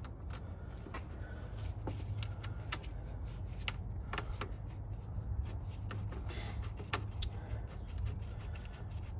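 Scattered light clicks and knocks of a plastic radiator fan shroud being worked into place on the radiator, over a steady low hum.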